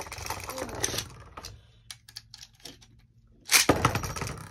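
Beyblade spinning top rattling and clattering against a plastic stadium just after a launch, dying away over the first second, with a few scattered clicks. About three and a half seconds in, another launch sends a top into the stadium with a loud burst of clatter that fades.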